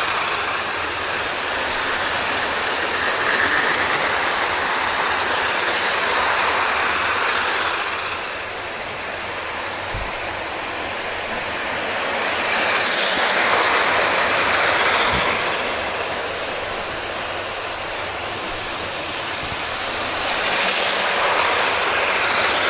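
00 gauge model trains running on track laid on carpet: a steady whirr of small electric motors and wheels on rail. It swells three times as trains pass close by.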